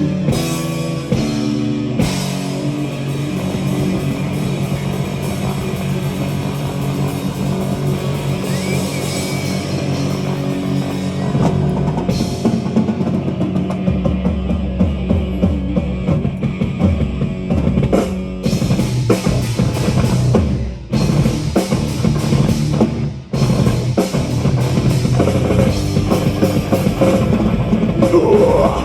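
Live heavy metal band playing an instrumental passage: distorted guitars, bass and a pounding drum kit, with a few short hits and stops near the end before the song cuts off.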